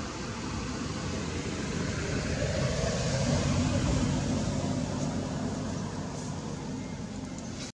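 Steady rumble and hiss of a passing motor vehicle, growing louder about halfway through and then fading.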